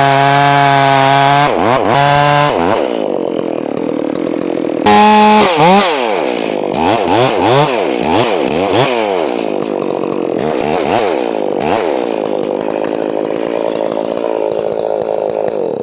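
Two-stroke chainsaw making the face cut in a maple trunk: short bursts at full throttle, then the engine pitch rising and falling over and over as the chain bites in and eases off, settling into a steady run through the wood.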